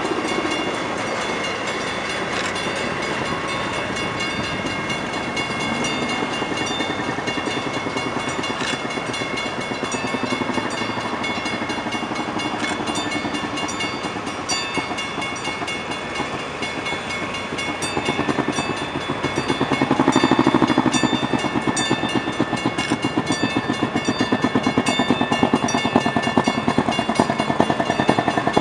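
A line of railroad speeders (track motor cars) running along street-embedded rails, their small engines putting and their steel wheels clicking on the track. The sound grows louder about two-thirds of the way in, with a quick, even putter near the end as the nearest speeder passes close.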